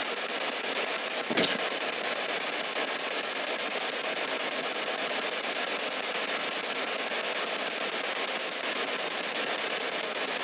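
Spirit box sweeping through radio frequencies: a steady hiss of radio static, broken by one brief click about a second and a half in.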